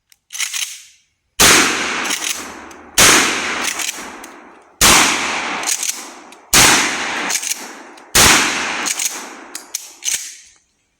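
Mossberg Maverick 88 20-gauge pump-action shotgun firing number 6 birdshot: five loud blasts in quick succession, about one every 1.7 seconds, each trailing off in a long echo.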